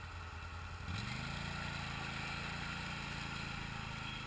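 ATV engine idling, then revved up sharply about a second in and held at higher revs while the machine churns through deep muddy water.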